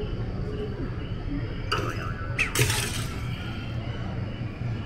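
Steady low rumble of a dark ride in motion. About two seconds in and again just after, two short bright clinking, crashing sound effects play.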